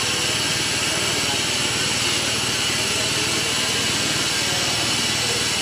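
Bubble film making machine running: a steady, even mechanical noise from its rollers, with a few faint steady tones over it.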